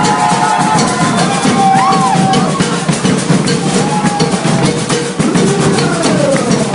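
Maracatu drumming: a dense, driving rhythm of bass drums and snare drums, with a few gliding high tones over it.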